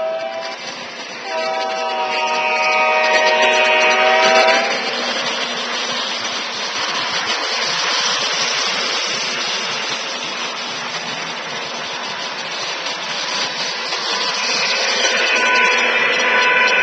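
Lionel O-gauge Union Pacific 2701 genset switcher's electronic diesel horn sounding a short blast, then a longer one lasting about three seconds. Then the steady rolling noise of the model train's wheels on three-rail track as the cars pass, with a fainter horn-like tone returning near the end.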